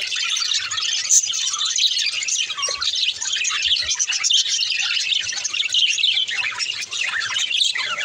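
A flock of budgerigars chirping continuously, many short calls overlapping.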